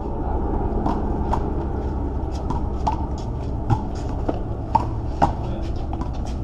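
Handball rally: a string of sharp slaps and knocks as the small rubber ball is struck by hand and rebounds off the wall and concrete court, mixed with players' footsteps. The three loudest knocks come a little past halfway. All of it sits over a steady low rumble.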